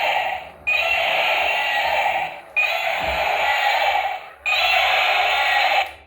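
A toy vehicle's electronic sound effect: the same loud sound repeats about every two seconds, three times over, then cuts off just before the end.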